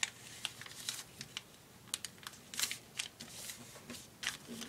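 A sheet of paper being folded and pressed flat by hand on a tabletop: scattered short, crisp rustles and scrapes, about eight of them.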